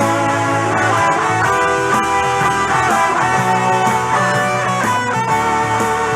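Instrumental break in a rock-swing cover song: a guitar plays an improvised melodic solo with bending notes over a steady bass line.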